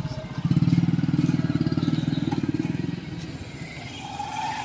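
Motorcycle engine running with a fast, even pulse as the bike pulls away. It fades after about three seconds.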